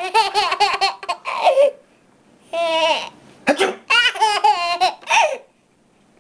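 A baby laughing in two runs of quick, high-pitched bursts, with a longer drawn-out laugh in between.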